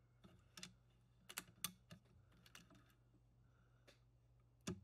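Near silence: a faint steady low hum with several light, irregular clicks, the sharpest one near the end.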